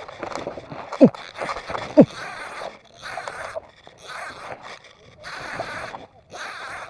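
A person grunting twice, about a second apart, each grunt dropping quickly in pitch, among rough bursts of hard breathing roughly once a second.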